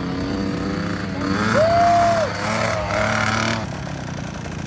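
Small dirt bike engine running and revving. Near the middle it revs up to a high held note for under a second, then drops back.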